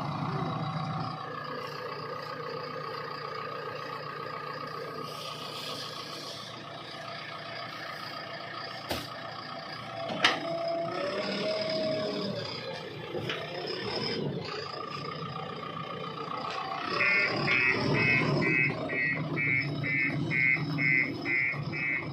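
Diesel engines of a backhoe loader and tractor running steadily while the loader works, with a couple of sharp knocks about nine and ten seconds in. About 17 seconds in, a fast, evenly repeating high beep starts, about three a second.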